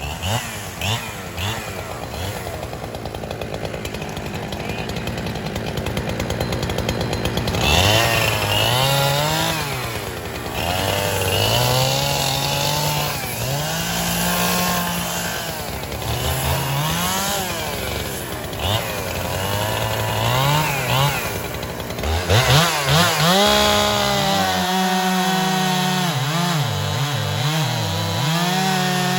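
Two-stroke chainsaw cutting hard gum, its engine pitch dipping and climbing back again every two to three seconds as the chain loads up in the wood.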